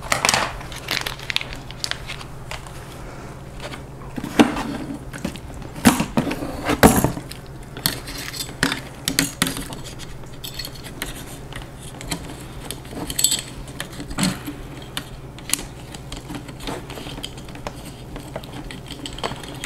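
Hand-handling noise from a camera being fitted into a milled-aluminium camera gimbal: irregular clicks, taps and light clatter of hard parts, with a few louder knocks in the first seven seconds. A steady low hum runs underneath.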